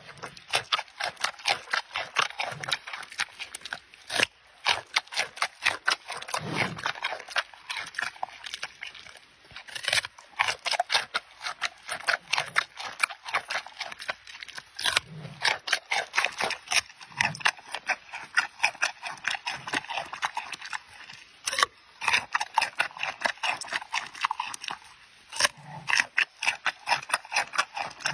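Giant panda biting and chewing a raw carrot: a rapid run of crisp crunches, several a second, broken by brief pauses.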